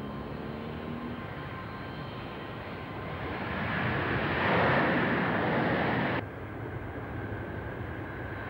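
Boeing 747 jet engines on the runway. The noise swells to a loud rush a few seconds in, then cuts off suddenly about six seconds in, leaving a steadier, quieter background hum.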